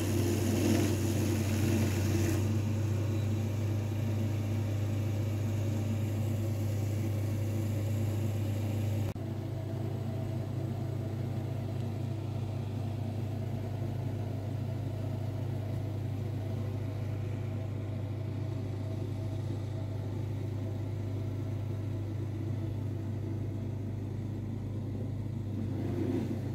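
Tracked stump grinder's engine running steadily, with its cutter wheel grinding into a tree stump and throwing chips for the first couple of seconds. About nine seconds in, the hum drops to a quieter, steadier engine drone, heard through a window.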